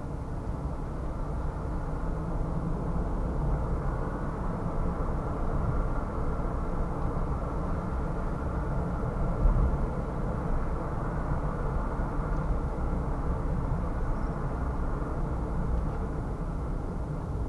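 A car's engine and tyres running at road speed: a steady low rumble of driving noise with little above the midrange. One brief louder thump comes about halfway through.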